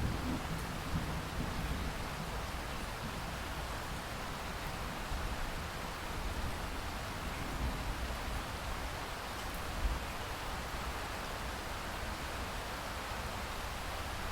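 Steady rain falling in a thunderstorm, with the low rumble of a thunderclap dying away in the first couple of seconds.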